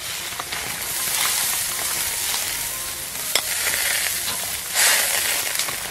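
Pumpkin soup boiling in a wok, bubbling steadily while the pumpkin dregs are skimmed out with a mesh strainer and a metal ladle. The utensils tap the wok a few times, sharply once a little past the middle, and there is a brief louder rush near the end.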